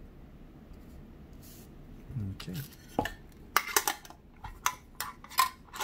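Hands handling Pokémon trading cards and their packaging: quiet at first, then from about halfway a quick run of sharp clicks and clinks, several a second.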